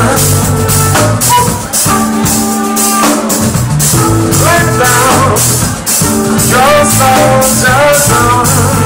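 Live band playing: drum kit, keyboards and bass with a lead singer's voice over them.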